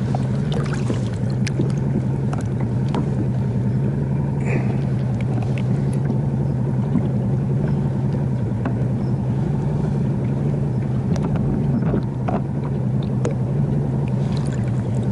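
Outboard motor of a bass boat running steadily underway, a low even drone, with a few faint knocks scattered through it.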